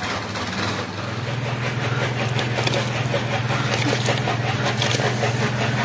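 Rice grains being tipped from a steel tray into a pot of boiling broth, pattering and spattering into it over the hiss of the boil. Under it, from about a second in, a steady low hum runs throughout.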